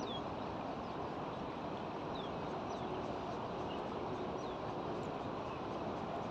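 Steady outdoor background noise, like distant traffic, with a few faint short high chirps that fall in pitch.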